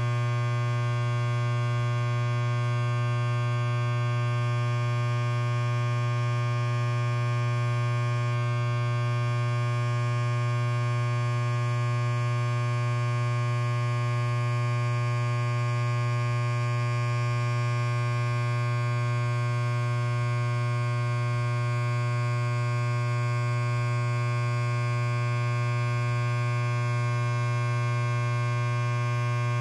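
Electric hair clipper running with nothing in its blades: a steady, unchanging buzz with a strong low hum.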